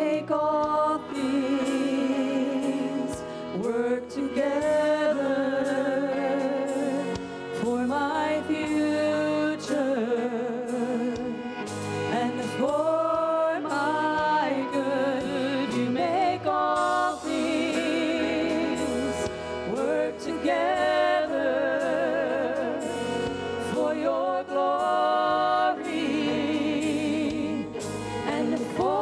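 Live contemporary worship song: a woman's lead voice sings long held notes with vibrato over a full band, with other singers joining.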